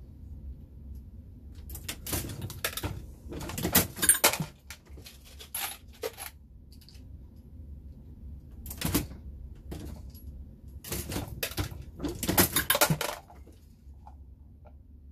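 Dillon Square Deal progressive reloading press being cycled by hand: clusters of metallic clicks, clanks and the clink of brass cases come every second or two, about six times.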